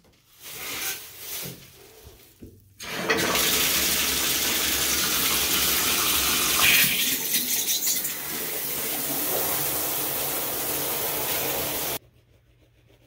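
A few light rustles and knocks, then water running from a bathtub tap. The water starts suddenly about three seconds in, runs steadily and loudly, and cuts off abruptly near the end.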